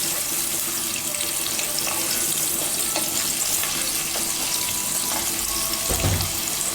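Onion masala frying in oil in a pan, a steady sizzling hiss as the gravy browns, with a low knock near the end.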